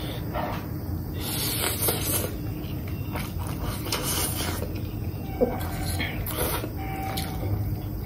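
Noodles being slurped and eaten, with several hissy slurps and a sharp click of cutlery against the plate about five seconds in.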